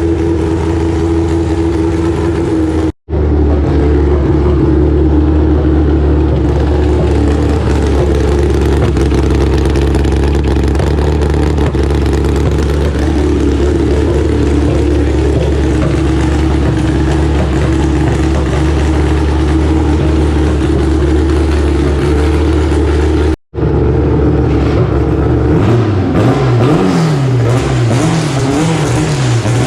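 Car engine running loud and steady at a held speed, dropping out to silence for an instant twice. Near the end its pitch wavers up and down with the throttle.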